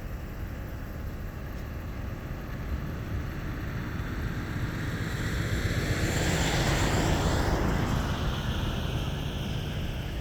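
Turbocharged single-engine Cessna Turbo Skylane on its takeoff run, growing louder as it nears, loudest about six to eight seconds in, then fading as its pitch falls.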